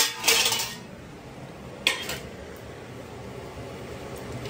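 Steel kitchen utensils and plates clattering as they are handled, loudest in the first second, with one sharp clink about two seconds in.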